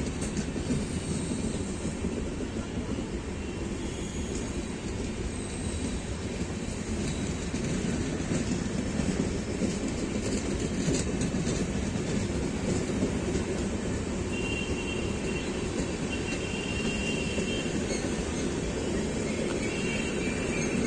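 LHB passenger coaches of an Indian Railways express rolling past: a steady rumble of steel wheels on the rails with clickety-clack from the rail joints. A faint high wheel squeal comes and goes in the second half.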